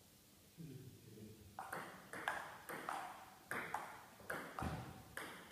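Table tennis rally: the ball clicking sharply off the bats and the table in turn, about two or three clicks a second, starting a little over a second in.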